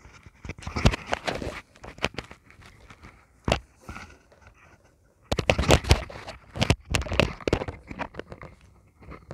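Handling noise from a plastic Bluetooth neckband and its earbuds being picked up and fiddled with: irregular clicks, taps and rustles. It comes in two busy spells with a quieter gap between them, marked by a single sharp click.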